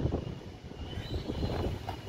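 Wind buffeting the microphone: an uneven low rumble, with a faint high thin sound about a second in.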